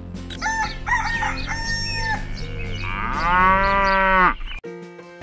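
Chicken calls: a few short clucks, then one long crow that rises and falls, lasting just over a second. Background music runs underneath.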